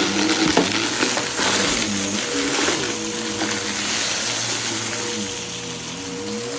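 Vacuum cleaner running steadily with its motor whine, sucking up scattered debris in brief rattling bursts.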